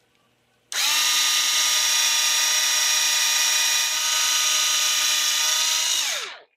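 Small low-torque cordless screwdriver (Hitachi DB3DL2) running on high speed, drilling a 7/64-inch hole through a moulded plastic stud. It starts a little under a second in and runs as a steady whine, then winds down with falling pitch near the end.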